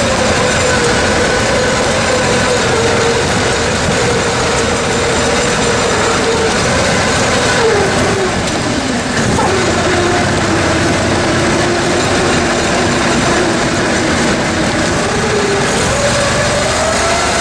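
Attex amphibious all-terrain vehicle's engine running under way, heard loud from on board. Its note holds steady, drops lower about halfway through as the throttle eases, and rises again near the end.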